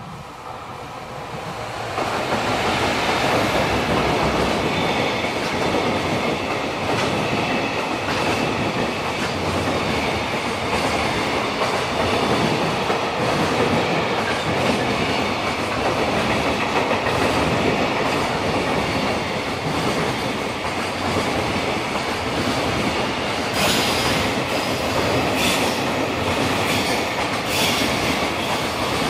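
A JR Freight container train hauled by an EF210 electric locomotive passing at speed. The rolling noise swells over the first two seconds as the locomotive arrives, then holds steady as the container wagons roll by, with clattering wheels over rail joints and faint wheel squeal. Sharper clacks come near the end.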